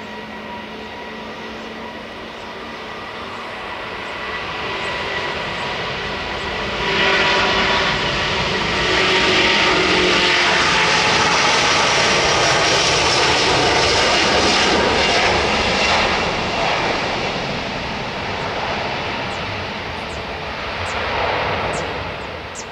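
Wide-body twin-jet airliner's engines at takeoff thrust during the takeoff roll on a wet runway. A steady whine sits under the jet noise at first. The noise jumps louder about seven seconds in as the aircraft passes, holds at its loudest until about sixteen seconds, then fades.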